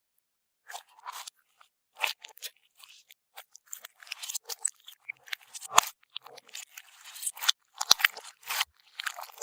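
Crunchy bead-filled slime being squeezed and pressed by hand, giving crisp crackles and clicks. These are scattered at first and come thick and fast from about four seconds in.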